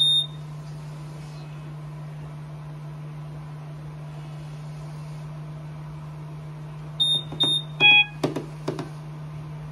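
Trilogy Evo ventilator sounding its electronic alert: a short high beep at the start, two more short high beeps about seven seconds in, then a lower, fuller alarm tone as its alarm light comes on, followed by a few sharp clicks. A steady low hum runs underneath.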